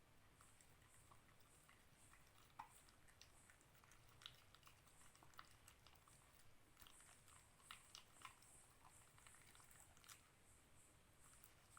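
Dalmatian puppy chewing dog food: faint, irregular short clicks from its mouth and teeth, a few standing out louder.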